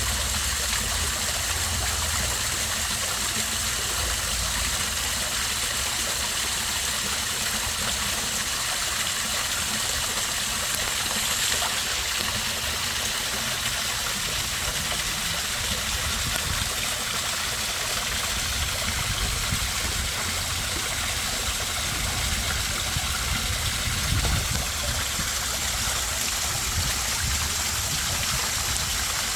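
Small backyard pond waterfall splashing and trickling steadily into the pond, a continuous, even rush of falling water.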